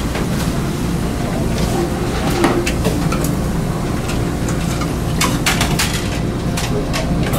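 Steady low rumble of a car ferry's engines under way, with scattered clinks and knocks from a serving ladle and tongs on stainless-steel chafing dishes. The clinks come thickest about five seconds in.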